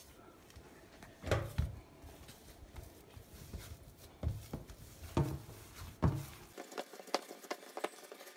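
Hand-kneading of soft yeast dough on a floured countertop: a few dull thuds at uneven intervals as the dough is pushed and pressed down, with faint rubbing and small clicks in between.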